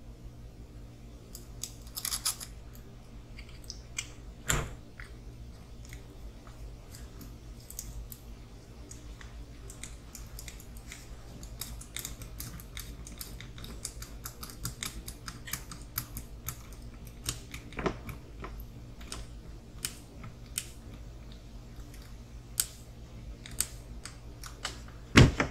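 Scattered small clicks and ticks of hand tools and small kit parts being handled and fitted while assembling an RC crawler, a few sharper knocks among them, over a steady low hum.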